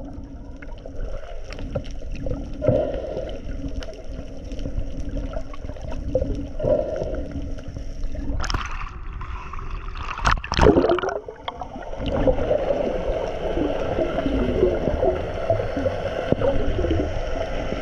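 Boat out on the sea: a steady low engine hum with water sloshing and gurgling, and two louder rushes of noise a little past halfway.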